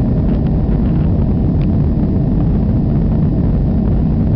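Cabin noise of a Boeing 737 climbing after takeoff: the steady, loud, low noise of its jet engines and the air rushing past the fuselage, without a break.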